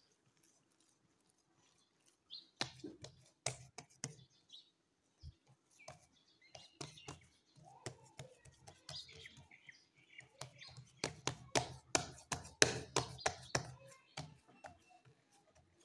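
Oiled hands patting and pressing a soft ground-chicken and bread mixture flat on a greased marble counter: irregular slaps and taps, in a short bunch about three seconds in and a denser run from about eleven to fourteen seconds in.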